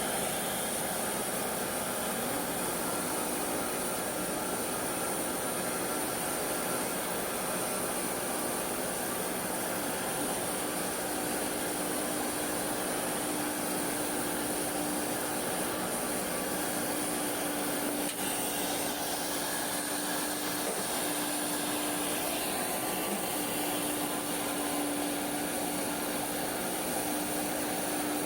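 Steady, loud machinery noise: an even hiss with a constant high whine and a low hum that comes up about a third of the way through.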